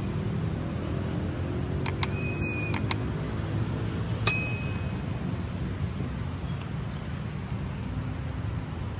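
Steady low rumble of city traffic. It is broken by a few sharp metallic clicks about two and three seconds in, and by one bright ringing ding a little after four seconds.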